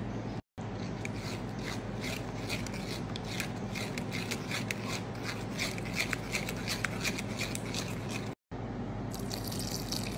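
A spatula pressing and scraping thick date paste through a stainless steel mesh strainer, giving rapid wet squishing and small scraping clicks. The sound breaks off twice into brief silences.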